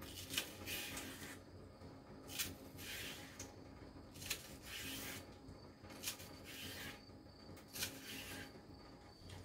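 Faint, repeated short rasps of skin being stripped from ryukyu (hasuimo, giant taro) stalks, about one stroke a second.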